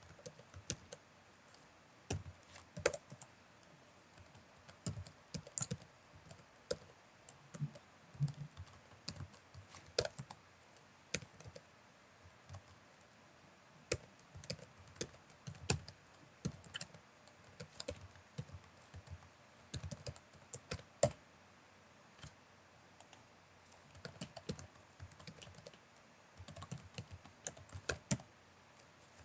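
Typing on a computer keyboard: irregular runs of key clicks broken by short pauses, with a few single keys struck harder than the rest.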